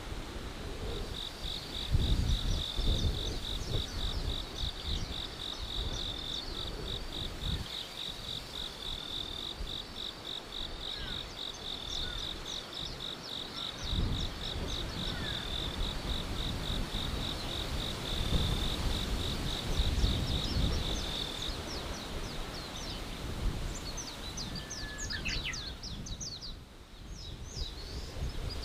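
Forest ambience: an insect trilling at a high pitch in rapid, even pulses for about twenty seconds, then stopping, over low gusts of wind. Near the end, birds chirp in quick, high notes.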